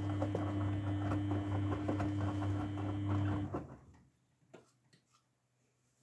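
Grundig front-loading washing machine's drum motor hums steadily as the drum tumbles wet towels in foamy water during the main wash, with soft sloshing and knocks. About three and a half seconds in the motor stops and the drum pauses, leaving near silence with a few faint ticks: the normal pause in the drum's wash rhythm.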